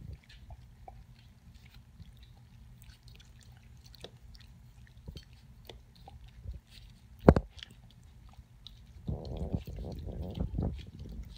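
A dog and puppies lapping milk from a stainless steel bowl: scattered wet licking clicks, one sharp knock about seven seconds in, and busier, louder lapping over the last two seconds.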